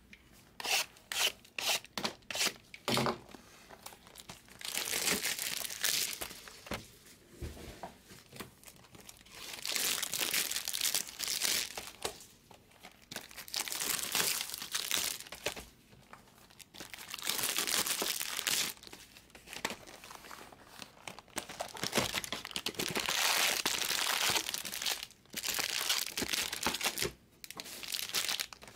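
Plastic wrapping on a sealed box of baseball cards being torn and crinkled, and foil-wrapped card packs rustling as they are handled. It comes in repeated bursts of a second or two, after a run of quick ticks at the start.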